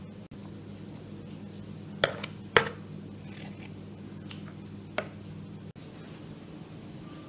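A few sharp knocks and clinks of kitchenware: three close together about two seconds in, the loudest at the end of that cluster, and one more about five seconds in, over a steady low hum.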